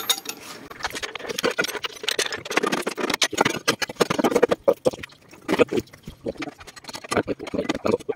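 Long-handled socket wrench working a bolt on a steel truck chassis: a dense, irregular run of metallic clicks and scrapes.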